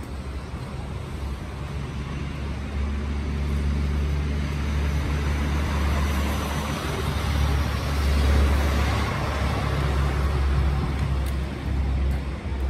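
Motor-vehicle noise: a steady low engine hum, with a vehicle passing by and swelling louder about halfway through.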